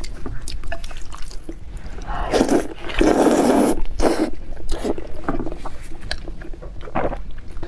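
Noodles slurped into the mouth in one long, loud draw from about two to four seconds in, followed by wet chewing and small mouth clicks.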